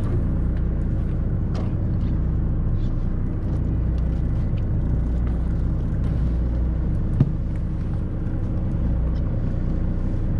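Fishing charter boat's engine idling, a steady low drone, with one short knock about seven seconds in.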